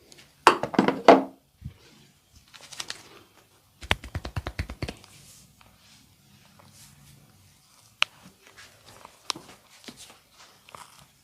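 Rapid percussive hand strikes of a massage, chopping or tapping on the body. A dense flurry comes about half a second in, and a quick run of about ten strikes around four seconds in, followed by scattered lighter taps and clicks.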